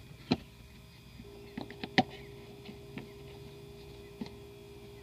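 Scattered clicks and taps of the plastic cowl trim panel of a 2006–2013 Chevrolet Impala being handled and its clips hooked in, with one sharp click about two seconds in. A faint steady hum starts about a second in.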